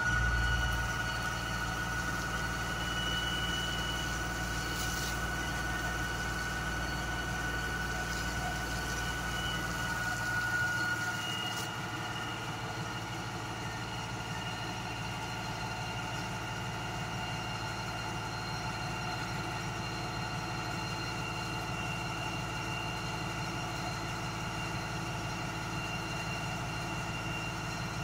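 US Jetting 4018 sewer jetter's engine and high-pressure pump running at a steady speed with a constant whine. A low rumble under it while the water jet sprays drops away about eleven seconds in, and the unit runs on steadily.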